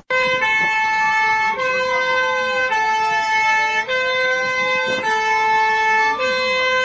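Electronic emergency alert alarm: two pitched tones alternating about once a second, over a siren that slowly wails up and down.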